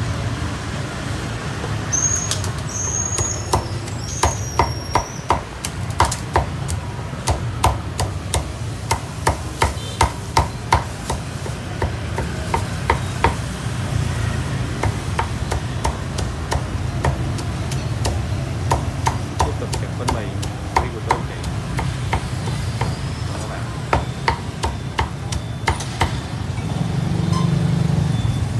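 Meat cleaver chopping roast pork, with rapid sharp chops in quick runs of several a second and short pauses between runs.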